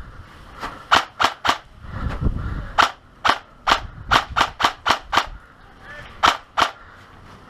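Airsoft gun firing sharp, snappy single shots in quick strings, about four or five a second: four shots in the first second and a half, a run of about ten from about three to five seconds in, then two more. A brief low rumble comes just before the long run.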